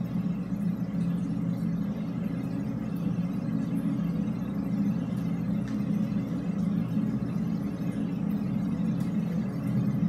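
Steady low background noise inside a drainpipe, picked up by a recorder lowered about five feet down the pipe under a cushion. No air-horn blast stands out.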